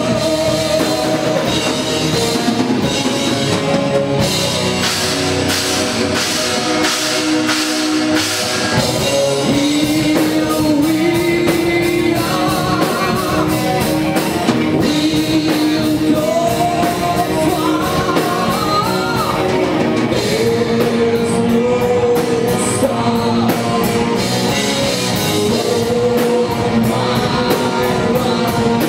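A rock band playing live: electric guitar and drum kit under sung vocals, loud and unbroken.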